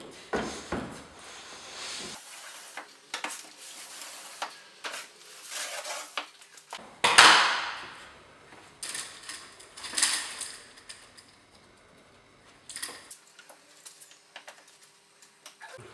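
Scraping, rustling and knocking of long PVC corner beads being handled and pressed into mudded drywall outside corners, in a string of separate noises with the loudest, a long swish, about seven seconds in.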